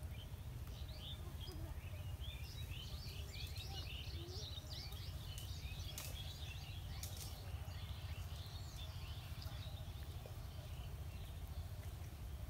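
Small birds chirping and twittering in many quick overlapping calls, thinning out after about ten seconds, over a steady low background rumble, with a few faint clicks.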